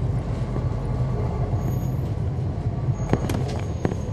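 Cummins ISL9 diesel engine of a 2011 NABI 40-SFW transit bus, heard from on board, running with a steady low drone. Several sharp clicks or rattles come near the end.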